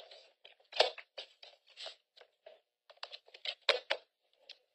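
Papers being handled and shuffled close to a microphone: a run of short rustles and clicks, with two sharper knocks, one about a second in and one near the end.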